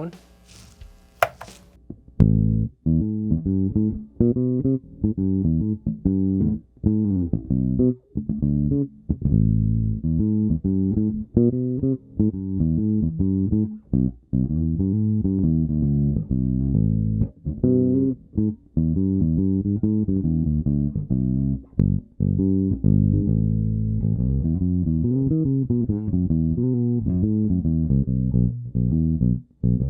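Nordstrand Acinonyx short-scale electric bass played solo through its bridge pickup on the second of its four tone settings: a busy riff of plucked low notes with little treble. It starts about two seconds in, after a couple of sharp clicks.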